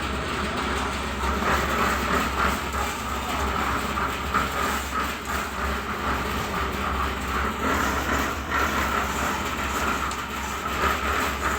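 A machine running steadily: a constant low engine hum under continuous rushing, clattering noise, typical of concrete-pouring machinery at work.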